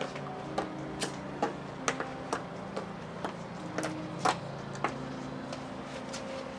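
Regular ticking, about two sharp ticks a second, over a low steady drone.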